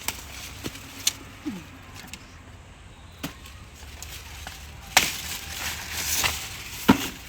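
Corn plants being handled: a few sharp snaps and cracks with rustling of leaves and husks, the loudest snaps about five and seven seconds in, as of ears of corn being broken off the stalks.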